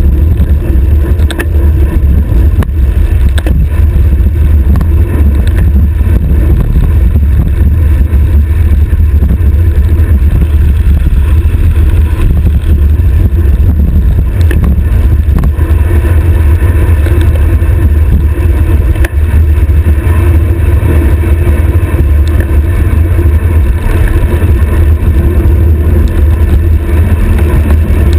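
Loud, steady wind buffeting on a stem-mounted action camera's microphone as a road bike descends at high speed, heard as a deep, continuous rumble.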